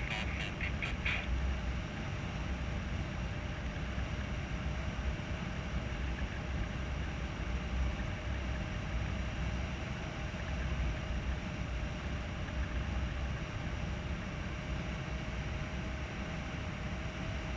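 Steady rush and low buffeting of wind on the camera microphone of a paraglider in flight.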